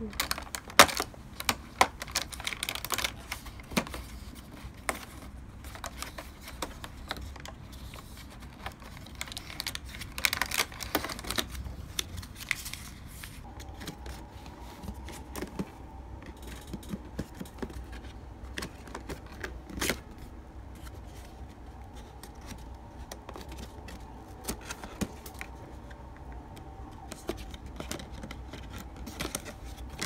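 Cardboard being handled and opened: scattered clicks and taps, with a couple of longer rustling, tearing spells in the first half as an advent calendar door is pried open. About halfway in a faint steady hum comes in under more light tapping, and near the end a paper cake box's flaps are folded open with a cluster of clicks.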